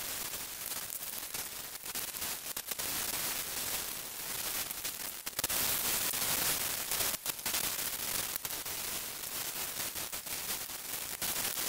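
Wet-sanding of a Toyota Probox's aluminium engine head cover by hand with P400 waterproof sandpaper, played back heavily sped up, so the sanding strokes blur into a steady crackling hiss.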